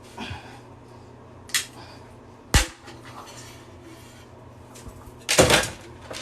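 Hard plastic clicking and cracking as an old plastic toilet-tank part is forced and broken off: a sharp crack about two and a half seconds in, and a louder, longer crunching clatter near the end.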